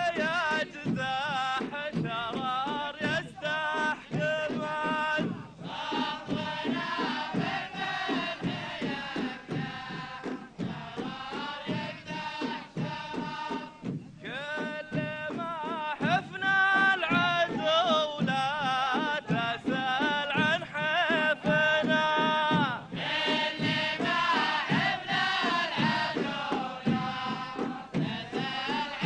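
Ardah war-dance music: a chorus of men chanting sung poetry in unison over steady beats of large frame drums.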